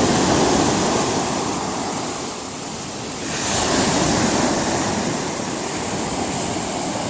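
Sea surf breaking in a strong wind: a wave crashes at the start, another breaks with a sharp rise about three seconds in, and the wash rushes on between them.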